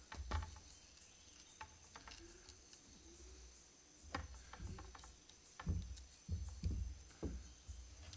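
Rattan cane being split with a parang, the blade twisted in the split to make it run along the cane. Quiet, scattered clicks and knocks, one near the start and several more in the second half.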